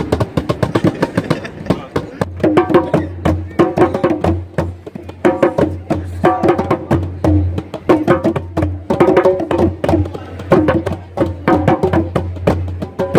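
Several djembes played by hand in a group rhythm, a fast run of sharp slaps and tones. About two seconds in, a steady low note and a repeating pitched phrase join the drumming.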